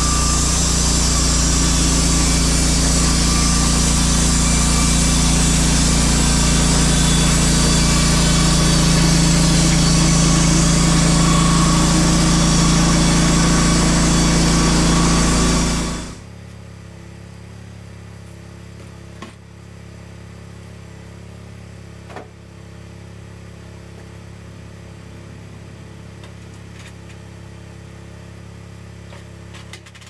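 The EZ Boardwalk 40 bandsaw mill's engine running loud at high speed with the band blade turning. About halfway through the sound drops suddenly to a much quieter steady idle, with a few faint clicks.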